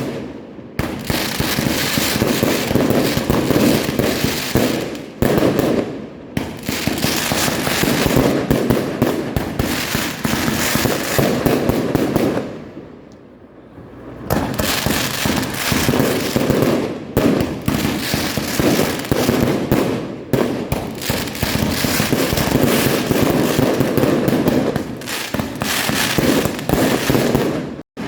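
Fireworks going off in a dense, continuous barrage of bangs and crackling, easing off briefly about halfway through before resuming.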